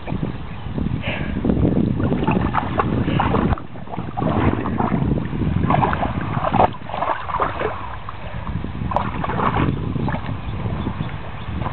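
Irregular splashing and sloshing in shallow water as animals wade and paw after a tadpole.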